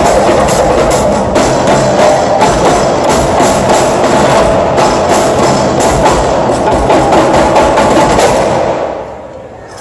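Live percussion ensemble on snare and tom drums, cymbals and hand drums, playing a loud, dense, fast rhythm of strikes that breaks off about nine seconds in.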